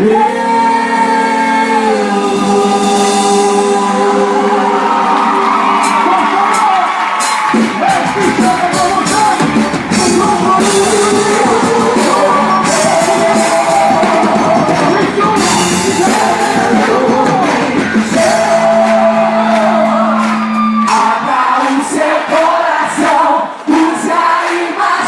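Loud music with singing, with shouts and whoops from a crowd. Held notes open it, and fuller, busier music takes over from about seven seconds in.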